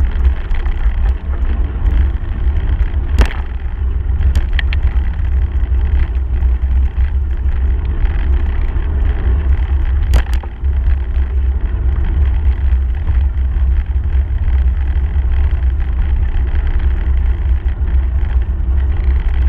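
Wind buffeting the microphone of a handlebar-mounted camera as a bicycle rolls fast over a gravel path, giving a steady heavy low rumble with tyre noise on the gravel. A few sharp knocks stand out, around three seconds in, four and a half seconds in and ten seconds in.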